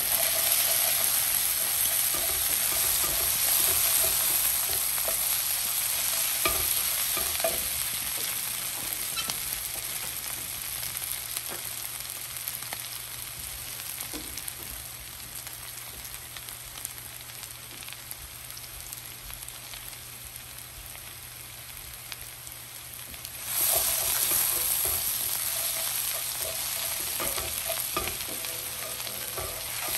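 Chopped cabbage, onion and tomato sizzling in oil in a pan, with a wooden spoon stirring and scraping through them. The sizzle slowly dies down, then jumps back up suddenly about three quarters of the way through.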